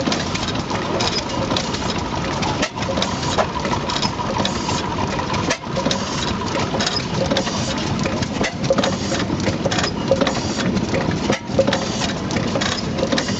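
1897 Deutz 16 PS horizontal stationary gas engine running, its moving parts clattering in a steady rapid rhythm with brief dips every few seconds.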